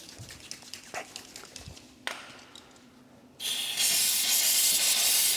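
A few light clicks and knocks, then about three and a half seconds in an aerosol can of motorcycle chain cleaner starts spraying: a sudden, loud, steady hiss.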